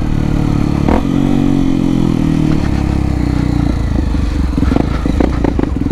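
Honda XRE 300's single-cylinder engine running through an aftermarket Dore exhaust while riding; the engine note drops lower about halfway through.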